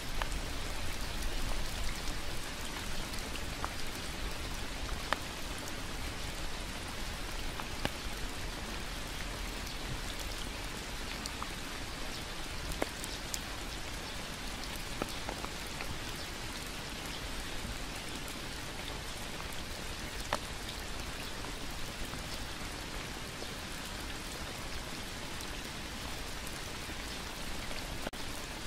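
Steady rain falling on leaves and a wet path, an even hiss with scattered louder single drips.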